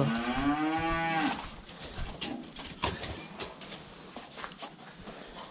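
A young fattening bull moos once, one drawn-out call that fades out a little over a second in. After it, only faint rustling and a few small knocks from the cattle at the feed barrier.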